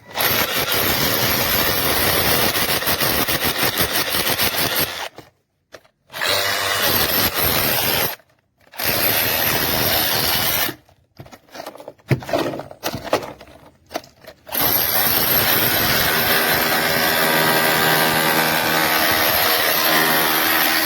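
DeWalt cordless SDS rotary hammer drilling into concrete, running in long stretches with several short stops, then running steadily from about two-thirds of the way through.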